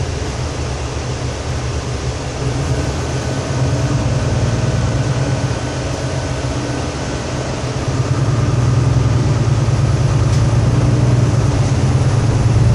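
Mercedes-Benz Conecto II city bus's diesel engine running, heard from inside the passenger cabin as a steady low drone. It grows louder about eight seconds in.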